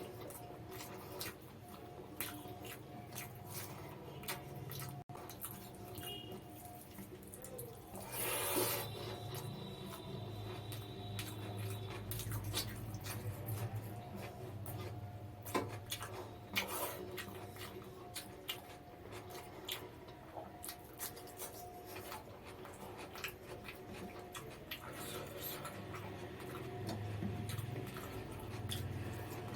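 Close-up eating sounds of a person chewing mutton biryani: many small wet mouth clicks and smacks over a steady low hum, with one louder noisy burst about eight seconds in.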